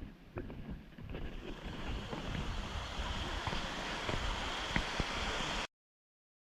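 Waterfall water rushing as a steady hiss, growing louder over the first couple of seconds, with low rumbling buffeting on the microphone and a few faint knocks. The sound cuts off abruptly near the end.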